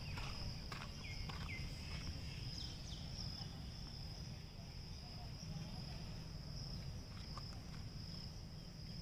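Insects, crickets or similar, keeping up a steady high-pitched drone over a low rumble, with a few footsteps crunching on the track ballast in the first couple of seconds.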